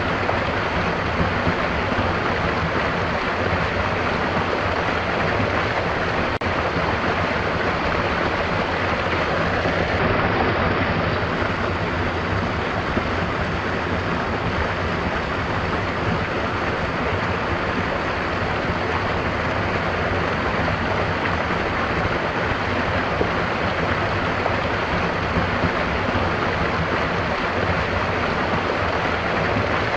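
A stream running steadily, a dense, even water noise with no breaks.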